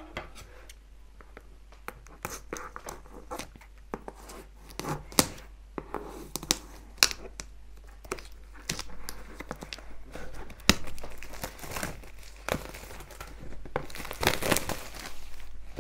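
Thin plastic shrink wrap crinkling and tearing as it is cut with scissors and peeled off a cardboard box, with scattered sharp clicks. The crackling is densest and loudest near the end.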